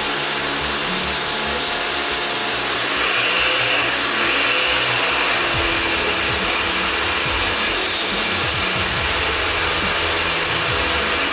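Kärcher K3 electric pressure washer running, its motor and pump whining steadily while the lance, set to its hard spray setting, blasts a jet of water onto a stone-chip floor.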